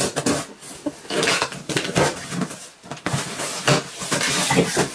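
A product box being opened and its packaging handled: a quick run of rustles, scrapes and small taps.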